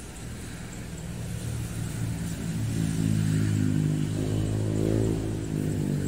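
A road vehicle's engine passing, growing steadily louder over the first few seconds and staying loud through the second half.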